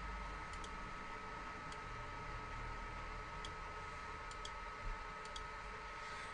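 Faint computer mouse clicks, a scattered dozen, some in quick pairs, over a steady hiss with a thin, steady whine.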